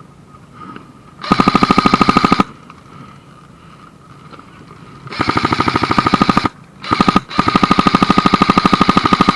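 Airsoft gun firing on full auto in four bursts: a burst about a second long, a longer one, a short one, and a final long burst, each a fast even rattle of shots.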